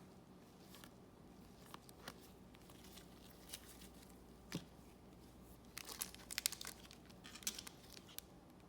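Trading-card pack wrapper crinkling and tearing in short crackling bursts, which start a little past the halfway point after a few faint clicks.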